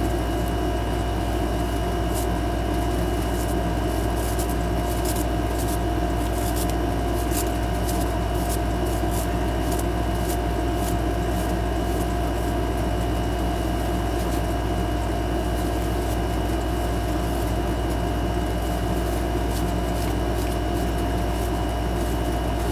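Steady machine hum with a few constant whining tones, unchanging throughout, with scattered light crackles between about five and eleven seconds in.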